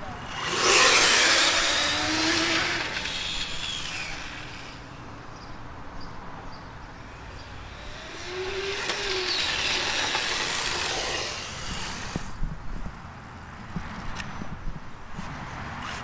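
Remote-control cars making two quick drag-racing passes: a loud high-pitched rush about half a second in that fades over a few seconds, then a second, somewhat quieter run from about eight to twelve seconds in.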